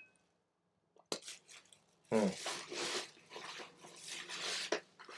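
A plastic carry-out bag rustling and crinkling as hands dig through it, after a single click about a second in.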